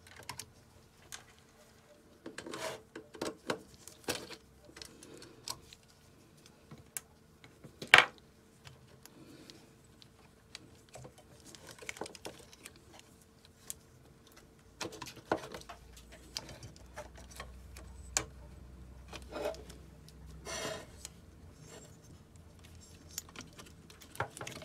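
Scattered small clicks, taps and light knocks as a circuit board and the metal case of an opened ATX computer power supply are handled, with one sharper click about eight seconds in.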